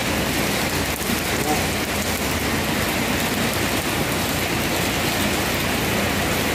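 Heavy rain pouring steadily, heard as an even hiss.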